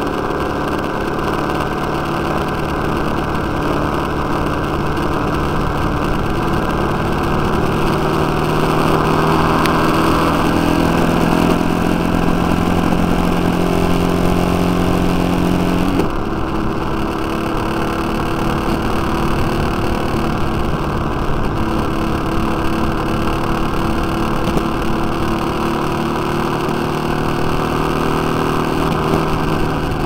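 Motorcycle engine running on the move. Its note climbs slowly for several seconds, drops suddenly about halfway through, then runs steady.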